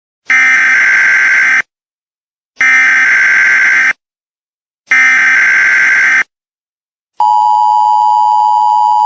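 Emergency Alert System signal: three short buzzing data bursts of the header, about a second apart, then the steady two-tone attention signal starting about seven seconds in.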